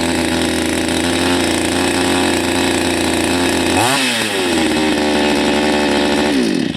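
Salem Master two-stroke chainsaw running fast at half choke. About four seconds in, the throttle is blipped: the engine revs up, then drops to a lower idle as the automatic choke releases. It stops abruptly near the end.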